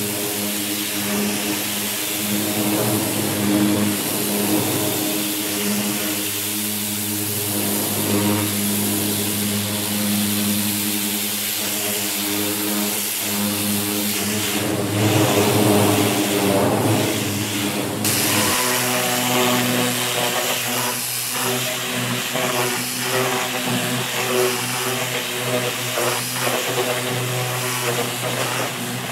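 Pressure washer running: a steady machine hum under the hiss of the water jet striking a bare car body panel, blasting off paint softened in an alkaline stripping bath. About two-thirds of the way through, the hum drops abruptly to a different pitch.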